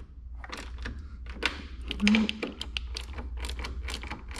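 Hand tool clicking in quick, irregular strokes as the battery tender's terminal nuts are tightened down on the ATV's accessory bus bar.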